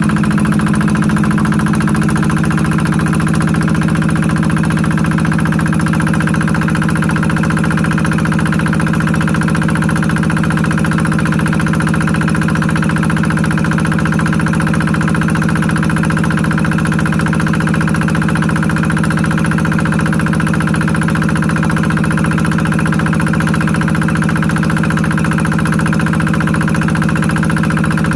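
Engine of a water pump running steadily and loudly while it pumps water into a fish pond; its note dips slightly about two seconds in.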